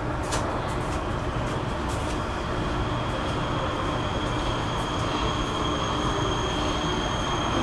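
Prague metro line C train running in the tunnel, heard from inside the car: a steady rumble and rush of wheels on rails. A high, steady whine grows stronger from about three seconds in, over a faint click or two near the start.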